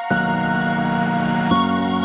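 Background music of sustained, slow chords that change about every second and a half.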